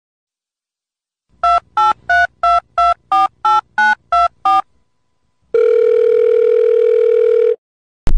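Touch-tone telephone dialing: ten quick beeps, each a pair of tones at a different pitch, then a steady telephone tone lasting about two seconds. A sharp click comes right at the end.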